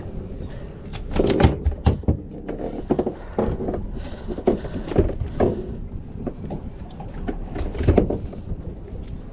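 Irregular knocks and slaps as a freshly caught red snapper is handled and unhooked on a hard plastic cooler lid, over a low steady rumble.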